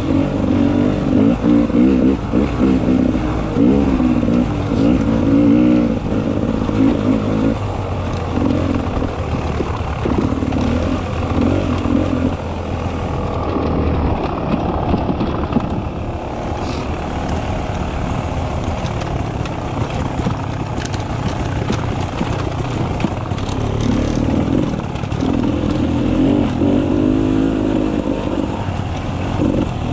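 Beta 300 RR two-stroke dirt bike engine, its revs rising and falling constantly with the throttle. It eases off for a stretch in the middle, with a few sharp clatters, and pulls hard again near the end.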